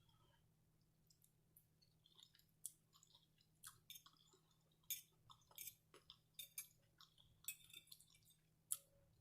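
A person chewing food close to the microphone: soft, irregular mouth clicks and wet smacks, starting about a second in, with a few sharper clicks along the way.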